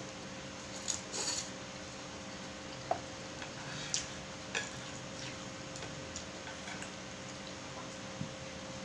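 Close-up eating sounds of a person chewing pancit canton noodles and a fried egg: a handful of short soft clicks and smacks, spaced irregularly, over a faint steady hum.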